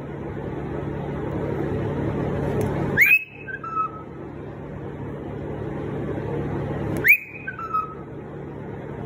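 A short two-note whistle, twice, about four seconds apart: a quick rising note held high, then a brief lower note. It sounds over a steady background hiss.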